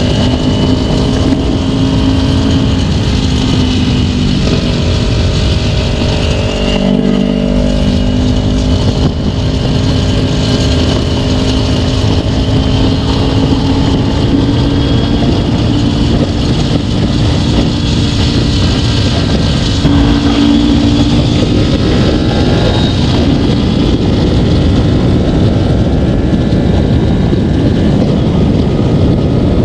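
Kawasaki Ninja 250 parallel-twin engine running at speed under heavy wind noise on the microphone. The engine note dips briefly about seven seconds in, then climbs slowly and shifts again around twenty seconds in.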